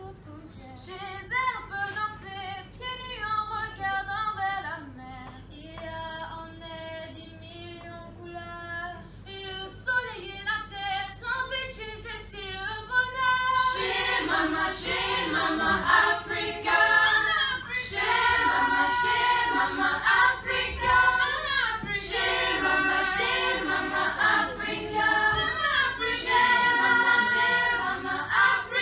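A youth choir singing together in several parts, growing louder about halfway through.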